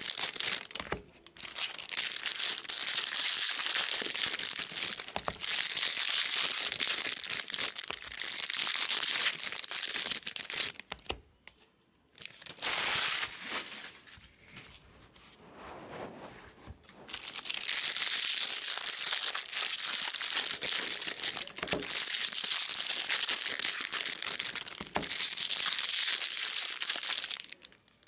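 Foil wrappers of 2020 Bowman baseball card packs being torn open and crinkled, a dense crackling that runs in long stretches with a quieter lull in the middle.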